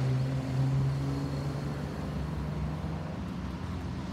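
Airbus A320-216's CFM56-5B jet engines, a steady rumble from a climbing airliner passing overhead that slowly grows quieter. A low steady hum fades out over the first two seconds.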